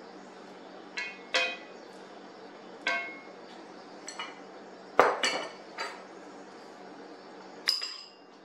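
Kitchen utensils clinking against a cast-iron skillet and a plate: a series of sharp, briefly ringing clinks, the loudest about five seconds in.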